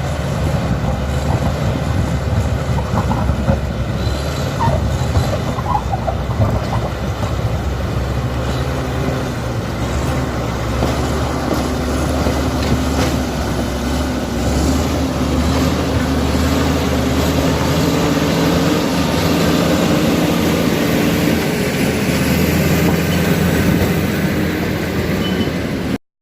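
Komatsu D85E-SS crawler bulldozer working: its diesel engine runs loud and steady while the steel tracks clatter and squeal. The engine pitch rises in the second half, and the sound cuts off suddenly near the end.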